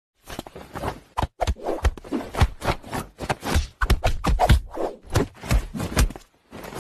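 A rapid, irregular run of soft slaps and thumps: a hand and a cat's paws batting at each other.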